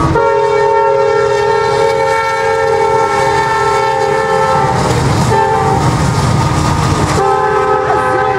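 Norfolk Southern freight locomotive sounding its multi-note air horn as it passes: a long blast, a short one about five seconds in, then another long blast from about seven seconds. The train's rumble and wheel clatter run underneath.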